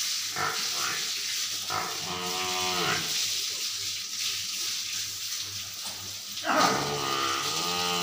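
Water buffalo lowing twice: a short call about two seconds in and a longer, louder one near the end. A steady hiss of hose water spraying on the shed floor runs beneath.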